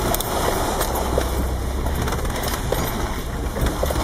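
Mercedes-Benz G-Class driving over a rutted dirt forest track, heard from inside the cabin: a steady low engine and drivetrain drone with scattered rattles and knocks as the body bumps along.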